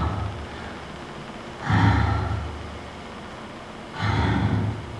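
A woman breathing heavily into a close headset microphone, one long audible breath about every two seconds.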